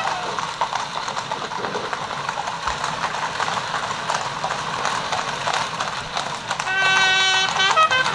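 Hooves of a four-horse coach team clip-clopping at a trot on a tarmac road. About seven seconds in, a horn sounds a short call of a few notes.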